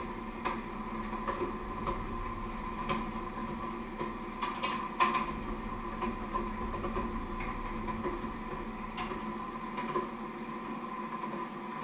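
Light clicks and knocks of kitchen utensils against dishes and a wooden cutting board during food preparation, the sharpest cluster about halfway through, over a steady electrical hum.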